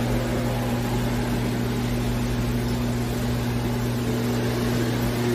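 Steady drone of running machinery heard through water, with a low even hum under a wash of noise; it starts and cuts off abruptly.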